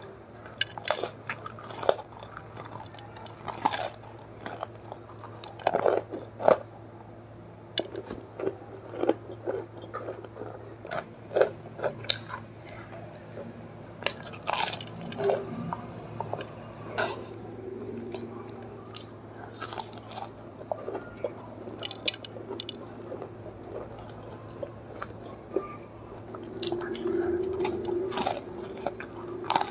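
Close-miked eating of a fried samosa: irregular crisp crunches of the pastry crust between bites and wet chewing.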